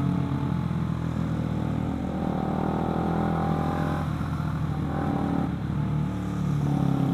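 Motorcycle engine running under way, seen from the rider's seat. The engine note rises and falls with the throttle and drops back briefly twice in the second half, over a steady rush of wind and road noise.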